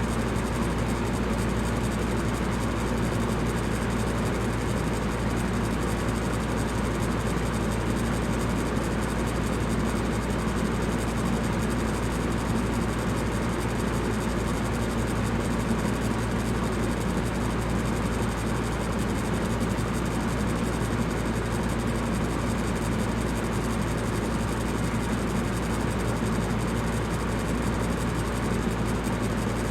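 Electric fan running steadily: an even whooshing noise over a low hum, with no change in speed.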